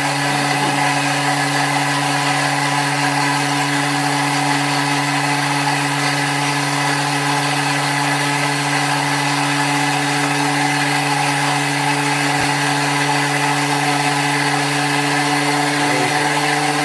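Thermomix TM5 food processor's motor running steadily, blending Thai red curry paste ingredients in its steel bowl: an even whirr at one fixed pitch.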